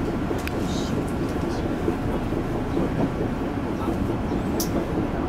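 Interior cabin noise of a Taiwan Railways EMU100 Tze-Chiang express electric train running: a steady low rumble of wheels and running gear, with a few brief high clicks.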